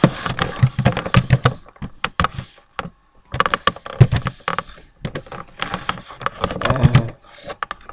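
Computer keyboard typing and handling noise close to the microphone: spells of rapid clicks and rustling, broken by short pauses.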